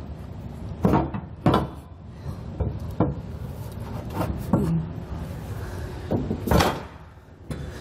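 Powder-coated metal fifth-wheel base rail and hitch being shifted by hand in a pickup bed: irregular clunks and knocks of metal parts, about seven in all, the loudest near the end.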